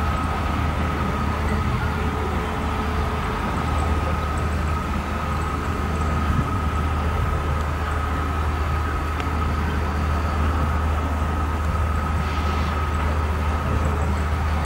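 Distant diesel shunting locomotive of class 362 (a former Bundesbahn V60) running slowly. It gives a steady low rumble with a thin, steady high tone above it.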